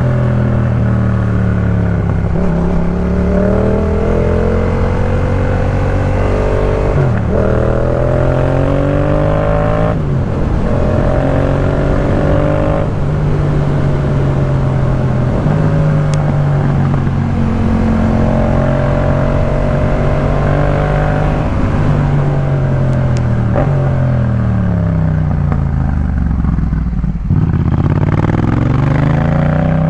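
Yamaha MT-07's parallel-twin engine through a Jeskap K4 full exhaust, pulling through the gears: the pitch climbs and drops back at each upshift, about seven, ten and twelve seconds in. It then holds a steady cruise, the revs fall through downshifts, and it accelerates again near the end.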